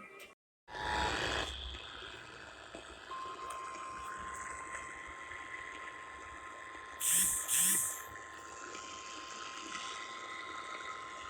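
Emergency alert test tone: one steady beep just above 1 kHz, held for about nine seconds over radio hiss, of the kind NOAA Weather Radio sounds before a tsunami-warning test. It comes after a brief dropout and a short burst of static, and two short bursts of hiss cut in near the middle.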